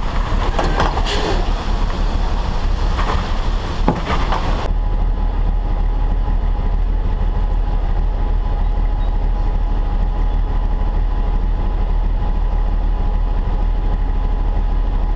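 Heavy diesel truck running, with dense road and wind noise and a few knocks. About five seconds in this changes suddenly to a steady diesel idle: a low drone with a faint steady whine above it.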